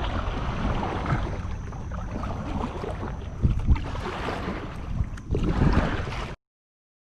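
Wind buffeting the microphone over water noise from a kayak moving across shallow flats, with a few louder low thumps. The sound cuts off suddenly about a second before the end.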